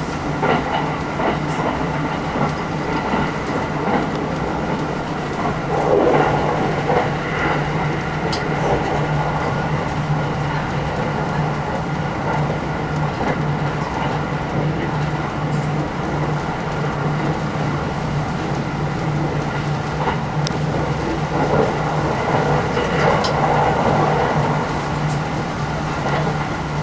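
Cabin running noise of a 683 series electric limited express train at speed: a steady rumble and rush with a constant low hum, and a few sharp clicks.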